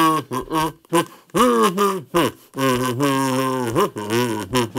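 A kazoo playing a tune in short buzzing phrases, the notes sliding up and down, with brief breaks between phrases.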